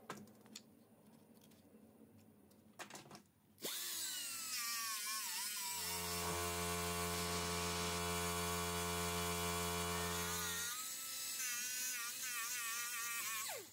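An electric power tool switches on about three and a half seconds in and runs, its whine wavering and dipping in pitch. For about five seconds in the middle a deep steady hum sounds with it, and it cuts off abruptly at the end. A few light knocks come before it starts.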